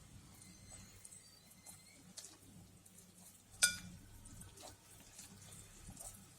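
Faint kitchen sounds of stirring gofio, sugar and water in a bowl: small scrapes and taps, with one sharp ringing clink a little past halfway.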